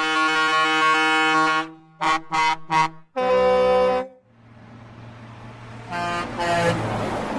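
Truck air horns: a long held chord, three short blasts and another longer blast, then a steady low engine rumble with hiss, over which two more short horn blasts sound about six seconds in.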